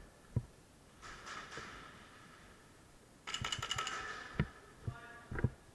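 Airsoft guns firing in short bursts of rapid clicks, a quieter burst about a second in and a louder one about three seconds in, with a few dull thumps between.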